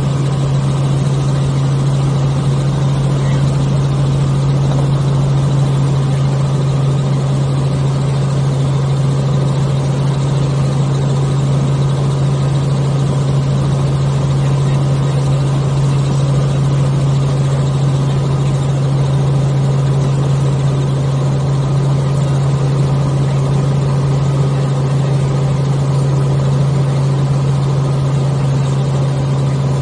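Helicopter in steady forward flight heard from inside the cabin: a constant engine-and-rotor drone with a strong, unchanging deep hum under it.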